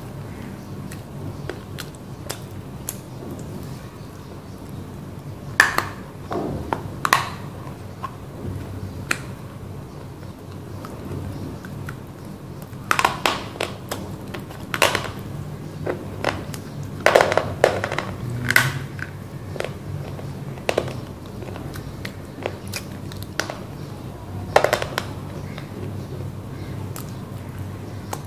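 Close-miked biting and crunching of roasted black clay (mitti) being eaten: sharp, dry cracks in a few separate clusters, with quieter chewing between them, over a steady low hum.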